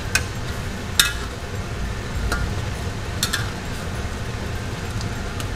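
Metal spoon and ladle clinking against a ceramic bowl and a steel wok as cornstarch slurry is stirred into soup to thicken it: a handful of sharp clinks, the loudest about a second in, over a steady low hum.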